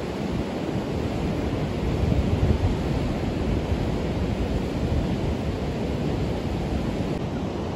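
Large river falls and rapids raging: a steady rush of whitewater.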